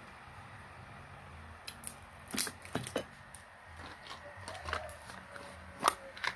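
Handling of a PCP air rifle during repair: a few scattered clicks and light knocks, the sharpest one near the end.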